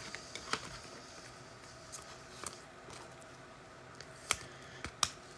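Faint handling noise of trading cards: a few scattered light clicks and soft rustles as cards are slid and flipped, the sharpest tick a little after four seconds in.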